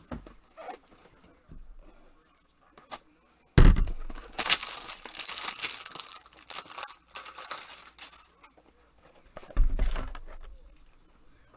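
Paper or plastic packaging being torn and crinkled for several seconds, beginning with a thump about three and a half seconds in, followed by another thump about a second after the tearing stops.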